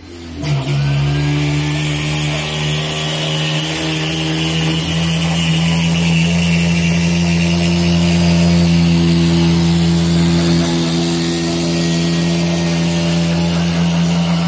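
CNC router's Kress spindle motor switching on and spinning up in the first half second, then running at a steady high pitch at about 5000 rpm while its 90° V-bit engraves acrylic.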